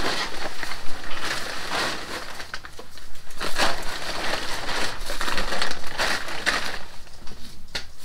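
Plastic poly tarp crinkling and rustling in fits and starts as it is pulled and stretched over a boat, easing off near the end.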